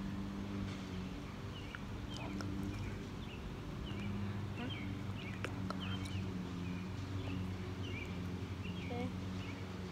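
A small bird chirping over and over in short calls, about two a second, over a steady low hum.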